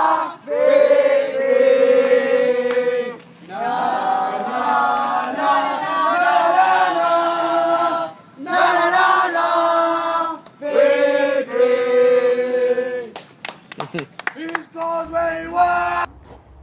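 A group of voices singing a football chant together in repeated phrases a few seconds long. Near the end a quick run of sharp clicks breaks in, and the singing cuts off suddenly.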